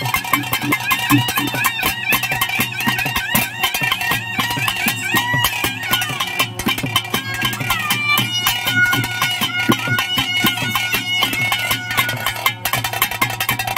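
Bhuta kola ritual music: a reedy wind instrument plays a bending, ornamented melody over a steady drone, with rapid, dense percussion strokes.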